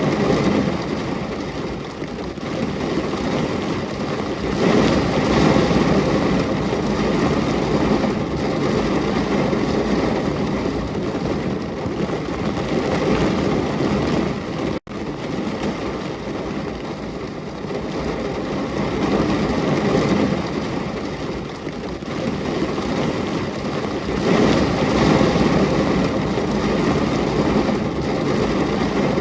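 Steady rain: a dense, even hiss that swells and eases every few seconds, with a split-second dropout about halfway through.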